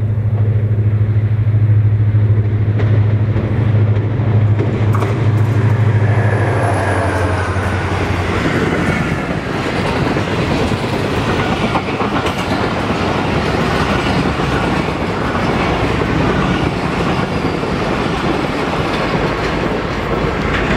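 A Pakistan Railways express train passing at high speed. A diesel locomotive's steady engine hum dominates for the first seven seconds or so, then gives way to the passenger coaches rushing past with loud, continuous wheel-on-rail noise.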